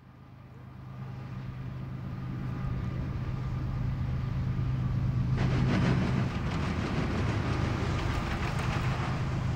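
Diesel freight locomotive approaching, its engine a steady low drone growing louder. About five seconds in, the rolling noise of wheels on rail joins in with a fast clickety-clack as the train draws near.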